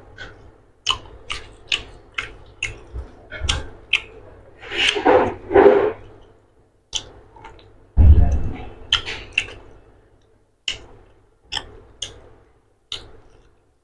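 Close-up eating sounds: a run of sharp, wet mouth clicks and smacks of chewing, while a hand mixes rice and egg curry on a steel plate. There are two louder, noisier bursts around five to six seconds in and a dull thump about eight seconds in.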